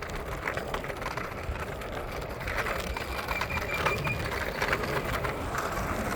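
Scooter wheels rolling on wet pavement, with wind and handling noise on the phone microphone and scattered small clicks and rattles. A thin high tone sounds for about a second near the middle.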